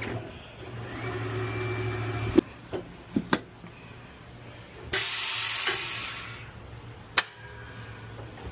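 Tire changer's turntable motor running as the new tire is worked onto the rim, stopping with a clunk, followed by a few knocks. About five seconds in, compressed air hisses loudly for just over a second as the tire is aired up.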